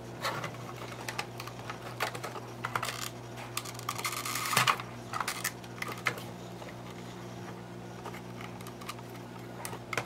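Irregular plastic clicks and scrapes as a 9-volt battery is pried out of an old smoke detector's brittle plastic battery compartment with a metal rod, with a longer scraping stretch about four seconds in. A steady low hum runs underneath.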